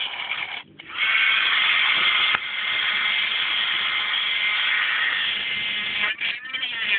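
High-speed rotary cutting tool grinding into a mobile phone's plastic and metal casing, a steady high-pitched grinding that starts just under a second in and stops about six seconds in.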